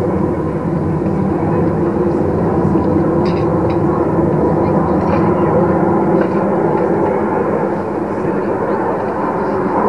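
Steady jet engine noise from a formation of display jets trailing smoke as they climb overhead.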